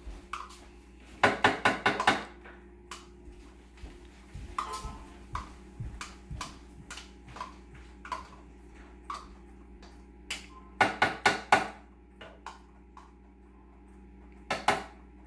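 A spoon scraping and knocking Greek yogurt out of its cup into a blender jar: quick runs of taps just over a second in, around eleven seconds in and near the end, with single taps and scrapes between.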